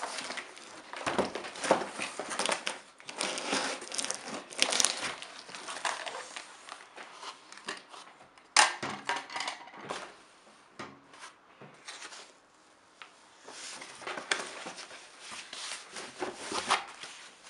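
Cardboard box flaps being pulled open and the box handled, then a thin foam packing sheet being crinkled and lifted out; a single sharp knock about halfway through, with quieter handling after it before the rustling picks up again.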